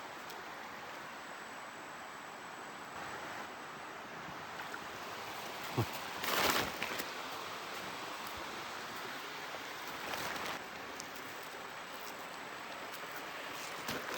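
Steady river water running, with a short thump and a brief splash about six seconds in, and a smaller splash around ten seconds.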